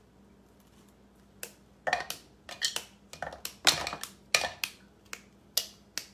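A bar of dark chocolate being snapped into pieces by hand: a quick, irregular series of about a dozen sharp snaps, starting about a second and a half in.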